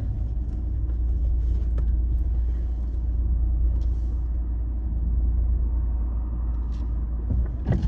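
Car running at low speed, heard from inside the cabin as a steady low rumble as it creeps forward, with a few faint clicks.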